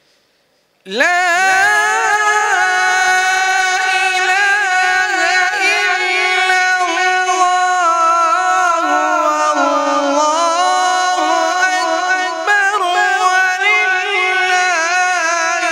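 A man's voice reciting the Quran in the melodic tilawat style, coming in about a second in and drawing out one long, ornamented phrase, the pitch wavering and turning without a break.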